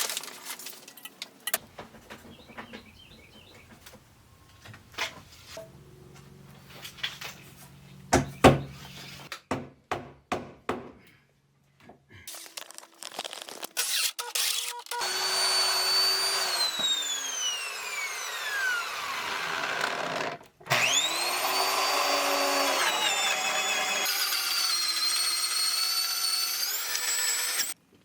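A half-inch DeWalt drill driving a hole saw into wooden wall studs. The first half holds scattered knocks and handling clicks. About halfway in the drill starts running, and its whine falls in pitch as it slows under load. It stops for a moment, then spins back up and runs steadily until just before the end.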